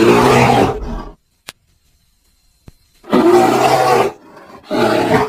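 Hippopotamus vocalizing in three loud, deep calls: one at the start lasting about a second, another about three seconds in, and a shorter one near the end.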